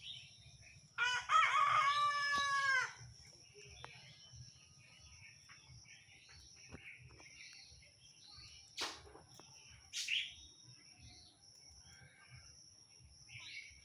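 A rooster crows once, about a second in, for nearly two seconds. Small birds chirp through the rest, over a thin steady high tone, with two short sharp sounds near the end.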